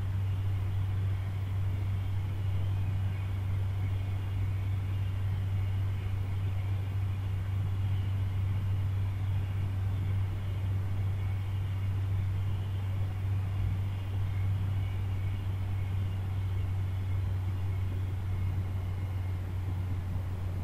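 A steady low hum with a faint hiss, unchanging, with no distinct events.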